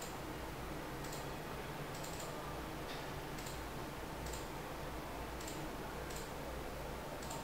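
Faint light ticks, roughly one a second at uneven spacing, over a steady background hiss and low hum.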